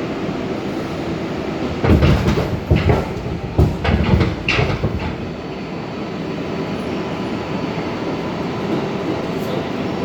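R142A subway train running, a steady rumble with a faint high whine. About two seconds in comes a burst of loud clattering and banging from the wheels on the track, lasting roughly three seconds before the rumble settles again.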